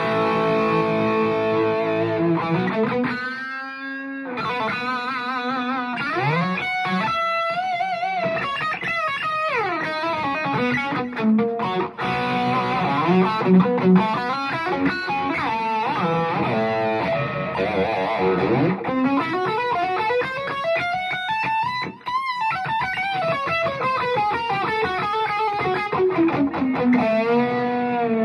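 Gibson Les Paul R9 electric guitar played through a 3rd Power Kitchen Sink tube amp: a lead passage of held, bent notes with vibrato and quicker runs between them, with a short pause about four seconds in.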